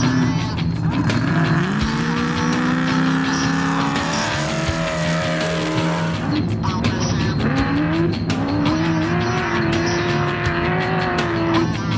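Off-road race car engine running hard, its pitch climbing as it revs up twice and then holding, over a noisy rush of tyres and wind, with music playing underneath.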